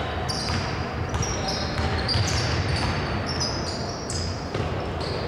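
Basketball being dribbled on a hardwood court, with sneakers squeaking as players run, in a large, mostly empty gym.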